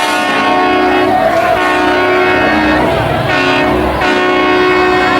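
Train horn sounding a chord of several pitches in about four long blasts, one after another.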